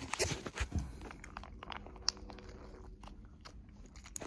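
Close-up eating of snack chips from a foil bag: a few crisp crunches and crackles, most in the first second, then sparser small clicks.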